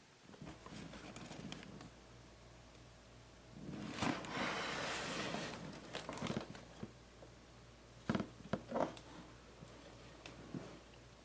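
Rustling and crinkling with scattered sharp clicks and knocks, the sound of packaging and parts being handled. The rustling is loudest in the middle, and a cluster of clicks comes near the end.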